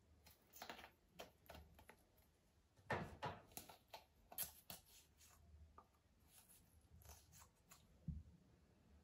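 Faint small clicks and scrapes of a plastic lash-serum tube and its applicator wand being handled and screwed in and out, the loudest cluster about three seconds in.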